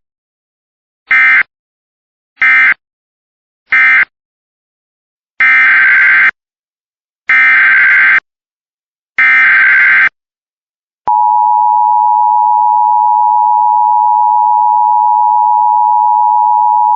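Emergency Alert System tones. Three short buzzy SAME data bursts, the end-of-message code of one alert, are followed by three longer bursts, the digital header of the next alert. About eleven seconds in, the steady two-note EAS attention tone (853 and 960 Hz) starts and holds.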